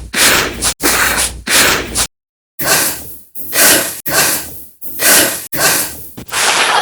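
A person breathing hard in quick, even breaths, about one every 0.7 seconds, with a short pause about two seconds in: an exertion breathing sound effect.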